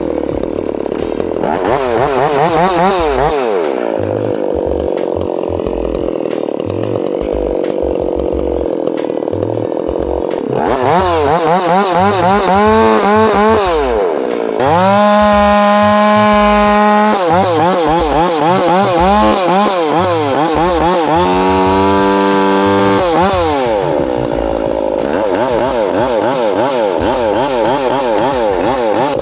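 Chainsaw limbing a felled maple: the two-stroke engine is revved up and down over and over, with two held stretches at steady full throttle, the first the loudest, before it drops back to a wavering idle-to-mid rev.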